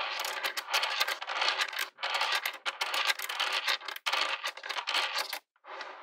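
Small magnetic balls clicking and rattling against each other as they are handled, in four dense runs of rapid clicks that stop abruptly; the last run is fainter.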